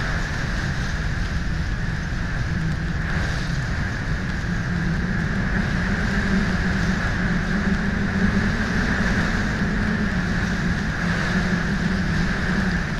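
Synthesized 'space sound' ambience for the hypothetical objects Enyo and Bellona: a steady, loud rumbling hiss with a constant whistling band running through it.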